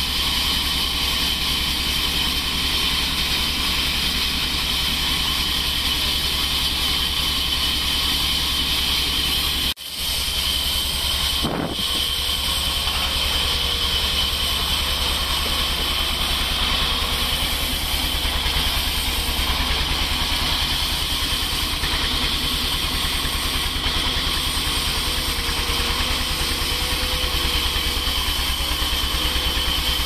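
Large sawmill band saw running steadily and cutting lengthwise through a log fed on a carriage, a steady high whine over a low motor hum. The sound drops out for a moment about ten seconds in.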